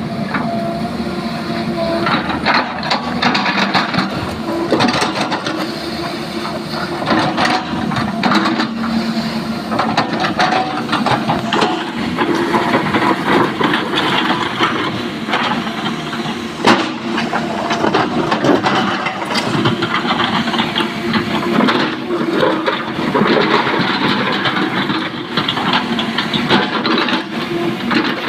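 Sany crawler excavator's diesel engine running steadily under load while its steel bucket scrapes and drags through broken rock and spoil, with frequent clatter and knocks of stones.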